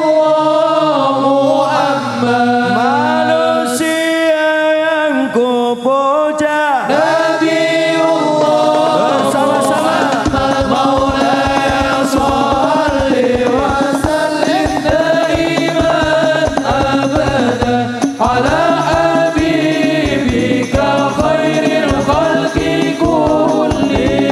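Men singing sholawat, Arabic and Indonesian devotional praise of the Prophet, into microphones through a PA system, their melodic lines held and ornamented. About ten seconds in, a steady low drum beat comes in under the singing.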